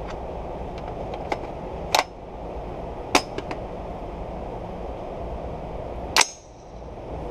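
An AR-15 being reloaded: light clicks of magazine handling, then a sharp clack about six seconds in as the magazine goes into the well. Sharp cracks about two and three seconds in sound over a steady low rumble.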